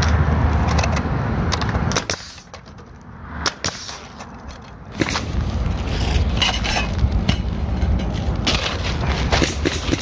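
Pneumatic coil roofing nailer firing a few nails through step flashing into asphalt shingles: a few sharp separate shots over a steady rushing noise that drops quieter for a few seconds early on.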